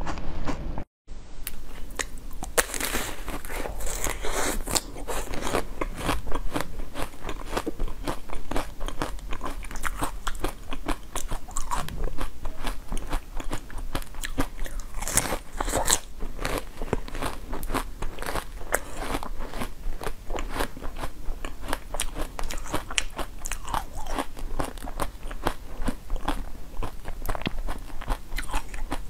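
Close-up crunchy biting and chewing of hard food, a dense run of crisp cracks and crunches, with a brief break about a second in.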